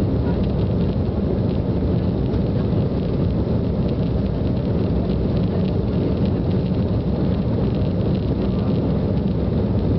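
Cabin noise inside an Embraer E195 airliner rolling along the runway: a steady low rumble from its GE CF34-10E turbofan engines and the landing gear on the pavement, with a lighter hiss on top.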